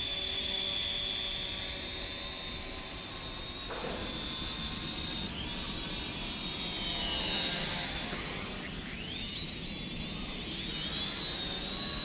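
Holy Stone HS155 mini quadcopter drone in flight, its motors and propellers giving a steady high-pitched whine that dips and rises in pitch as it manoeuvres.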